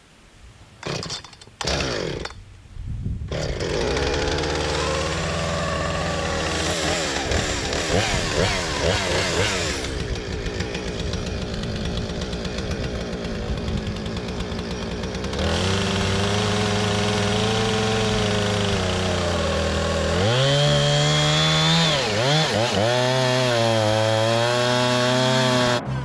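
Gas chainsaw started after a couple of short pulls, catching about three seconds in and revving, then running at high speed. From about fifteen seconds in its note drops and gets louder as it cuts under load through the end of a log, with the engine pitch sagging and recovering twice about twenty seconds in.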